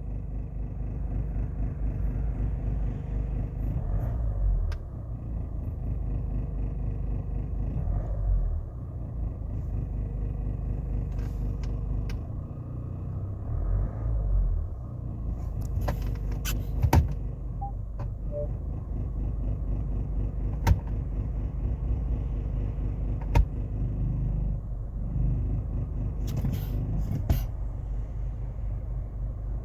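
Citroën DS5 2.0 HDi four-cylinder diesel heard inside the cabin: a steady low rumble, with about ten sharp clicks at irregular intervals. The clicks are the likely candidate for the strange sound being recorded.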